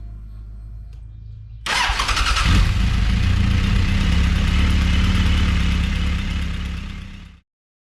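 Suzuki GSX1400 inline-four engine starting with a sudden catch about a second and a half in, then idling steadily while it runs on flushing oil. It fades out near the end.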